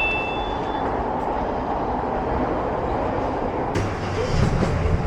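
Steady rushing background noise with a low hum that comes in near the end; a ringing ding fades out at the very start.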